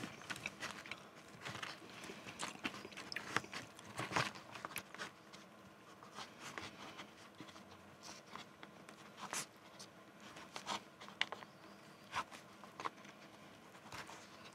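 Close-miked eating sounds: a wooden fork scraping and digging through Maggi noodles and popcorn chicken in a paper cup, with chewing, as irregular soft clicks, scrapes and crunches.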